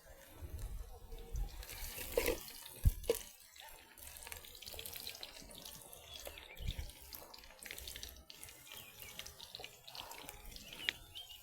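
Water running and splashing, as in washing or rinsing at a basin or sink, with scattered clinks and a sharp knock about three seconds in.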